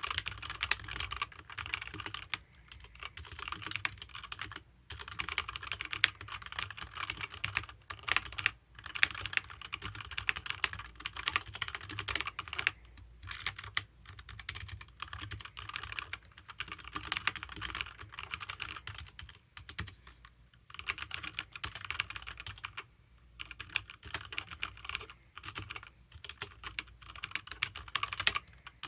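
Typing on a HyperX Alloy Origins mechanical keyboard with HyperX Red linear switches: fast, continuous key clacks in runs, with brief pauses between bursts.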